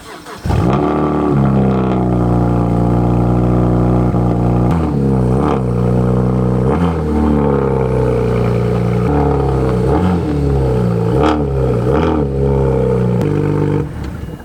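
Car engine running and being revved: the pitch drops and climbs again several times, then the sound cuts off shortly before the end.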